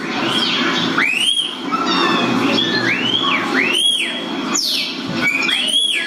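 Recorded song of a common starling played back in a classroom: a string of whistles that rise and fall, about one a second, with a few quick downward-sweeping whistles between them.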